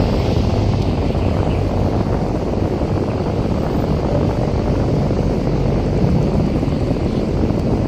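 Strong wind buffeting the microphone: a loud, steady low rumble of wind noise.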